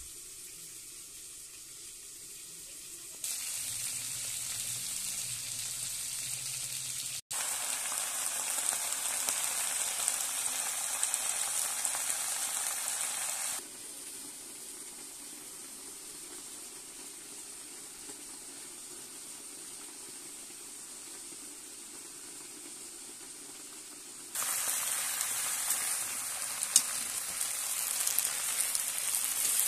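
Food frying in hot oil in a pan, a steady sizzle that jumps up and down in level several times at abrupt cuts. It is loudest in the last few seconds, while leafy greens are stir-fried with metal tongs, and a single sharp click is heard there.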